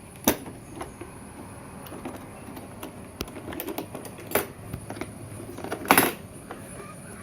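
A rotary hammer's box being opened by hand: handling noise with scattered small ticks and a few sharp clicks or knocks, the loudest about six seconds in.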